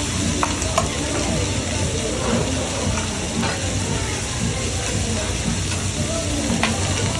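Food frying and sizzling on hot cookware, with a few sharp clicks of utensils and voices in the background.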